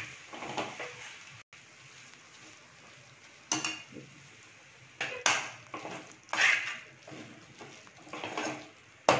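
Steel spatula scraping and knocking against a stainless steel pot while stirring a thick, wet boondi-and-milk mixture, in a few separate strokes with quiet between them.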